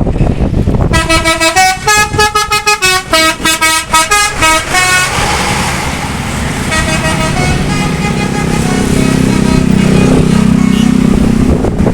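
Bus telolet horn (a Basuri multi-tone musical horn) playing a quick stepped tune of short notes for about four seconds, then softer repeated horn notes. A bus engine drones louder near the end.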